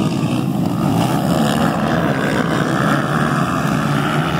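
A pack of motocross bikes accelerating hard off the start line, many engines at full throttle together in a loud, continuous mass of engine noise.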